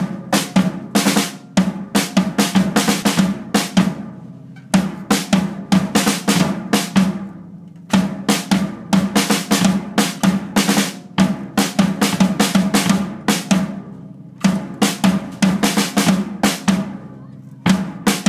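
Acoustic drum kit played with sticks: fast runs of snare and bass drum strokes in short phrases, broken by brief pauses every few seconds.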